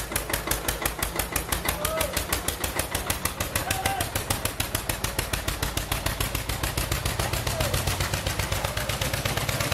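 Vintage Steyr tractor's diesel engine chugging with a rapid, even beat as it drives off.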